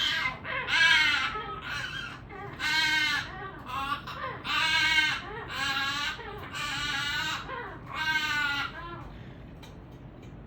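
Goffin's cockatoo giving a run of about eight short, wavering calls, a new sound for him now that he has lost his usual voice while critically ill. The calls stop near the end.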